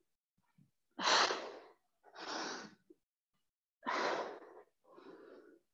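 A woman breathing hard from exertion: four forceful, noisy breaths in two pairs, the first the loudest.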